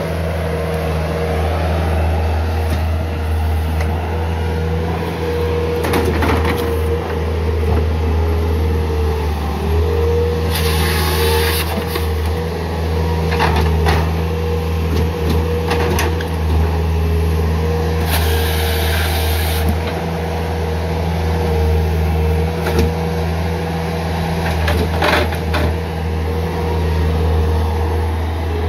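Bobcat S300 skid steer's diesel engine running steadily with a constant hydraulic whine as the grapple saw works logs. Several short knocks of logs and grapple, and twice a burst of loud hissing lasting over a second.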